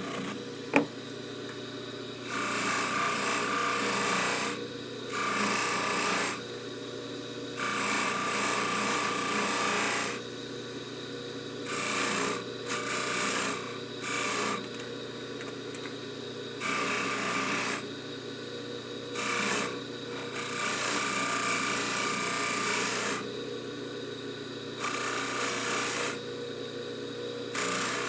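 Jewelry polishing buffer motor running steadily, with repeated rasping bursts of one to three seconds each as the necklace's clasp and hollow chain are pressed against the spinning buffing wheel.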